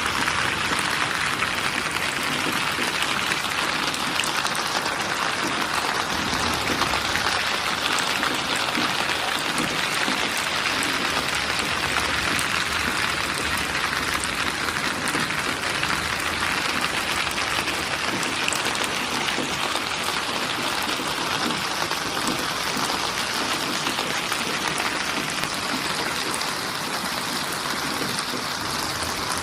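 Steady rain, a dense even hiss of falling drops with fine patter.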